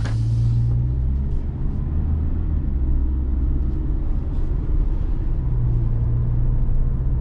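Steady low engine and road rumble inside the cabin of a 2013 Mazda CX-5 on the move, with a short rush of hiss right at the start. The car is running smoothly on new spark plugs fitted to cure a cylinder 2 misfire.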